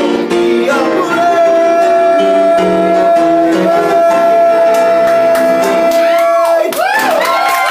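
A male singer holds one long, high final note over piano chords. Near the end the note stops and the audience breaks into whoops and cheers.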